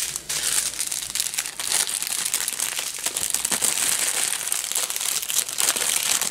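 Clear plastic bags of diamond-painting drills crinkling as hands fold and sort them, a continuous dense crackle.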